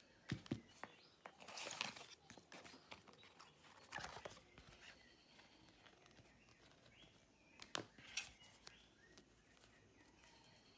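Faint clicks, taps and rustles of a smartphone and its packaging being handled, over a quiet background with a few faint high chirps. The loudest clicks come just after the start and again about 8 seconds in.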